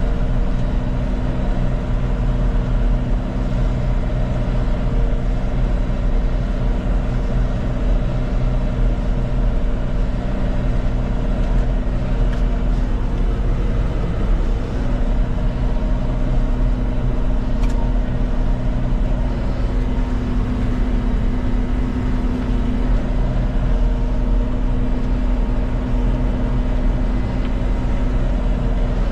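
John Deere 5100M tractor's diesel engine running steadily at a constant speed, a continuous low drone with no change in pitch. A single faint click sounds about two-thirds of the way through.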